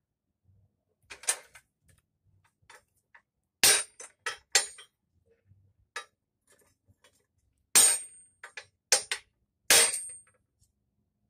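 Short-handled sledge hammer striking rectangular steel tubing on a small anvil: several separate, uneven metallic clanks, some with a brief high ring, the loudest a few seconds in and two more near the end.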